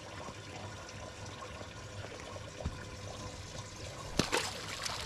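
Lake water lapping steadily against a pontoon boat's hull. About four seconds in, a short burst of splashing as a hooked white bass is pulled up out of the water.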